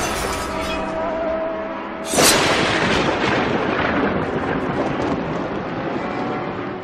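Intro sound effects: a noisy swell with a faint held tone, then a sudden loud explosion-like boom about two seconds in that dies away slowly.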